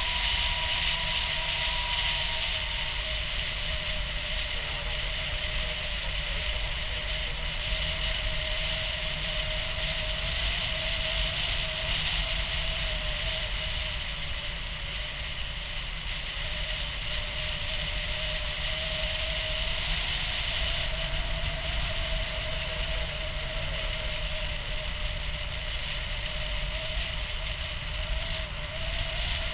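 Airflow rushing over the camera microphone in paraglider flight, a steady rumble and hiss, with a thin steady tone wavering slightly in pitch throughout.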